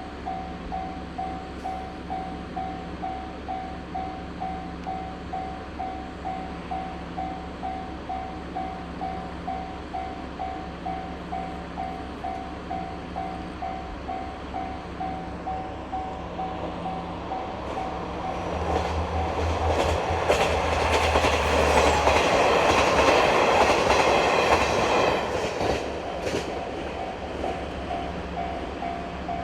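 Japanese level-crossing warning bell ringing in a steady, even rhythm. About halfway through, a diesel train approaches and passes, its wheels clacking over the rail joints and drowning out the bell for several seconds before fading again while the bell keeps ringing.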